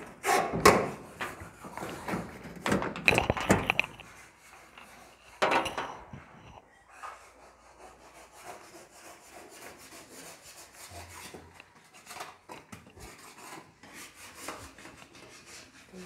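Rubbing and scraping noises with a few knocks, loudest in the first four seconds and once near six seconds, then quieter scratchy rubbing and clicks.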